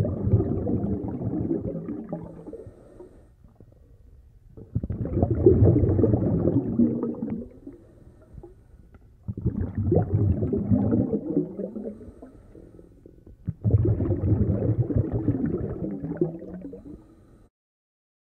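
Scuba diver's regulator exhalations underwater: four bursts of bubbling and gurgling, each starting sharply and fading over about three seconds, coming about every four to five seconds with quiet inhalations between.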